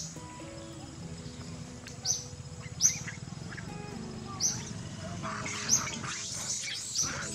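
Long-tailed macaques fighting: short, high chirping squeals repeat every second or so, with a burst of harsher, rougher screeching about five to seven seconds in as they grapple.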